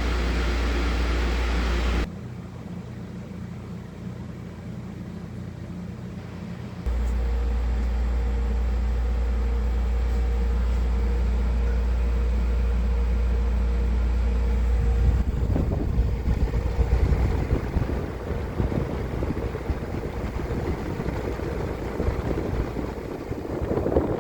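Air conditioners running with their compressors on: a steady low hum under a hiss of airflow. The hum drops away abruptly about 2 seconds in and comes back abruptly about 7 seconds in. Uneven rumbling joins it about two-thirds of the way through.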